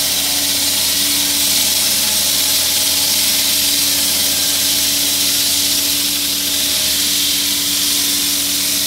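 Truck-mounted curb-cutting saw's horizontal blade grinding through a concrete curb: a loud, steady hiss of the cut over the even hum of the machine's motor.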